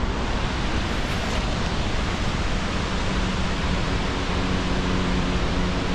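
Steady rushing of Victoria Falls' water, an even, unbroken hiss of falling water.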